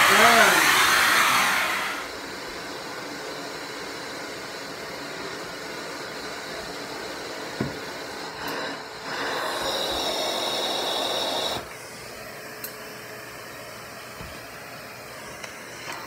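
Central vacuum suction rushing through the hose and floor tool, dropping sharply to a quieter steady hum about two seconds in. A second louder rush of suction from about nine seconds in cuts off suddenly a few seconds later, with a few single clicks and knocks of the wand and attachments being handled.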